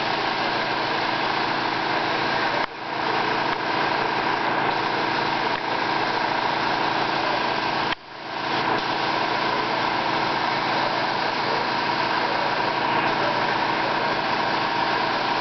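Gravity-cup air spray gun spraying a coating onto panels: a steady hiss of air over a continuous machine hum. The sound drops out sharply twice, about three and eight seconds in, and comes straight back.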